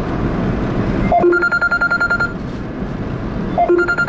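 An electronic alert sounds twice, about two and a half seconds apart: each time a short falling two-note beep, then a high tone pulsing rapidly for about a second. Steady road noise inside the moving car runs underneath.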